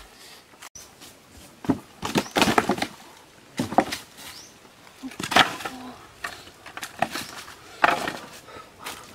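A bundle of dry firewood sticks rattling and knocking together in irregular crackling bursts as it is carried and dropped onto a pile, with steps crunching in dry leaf litter.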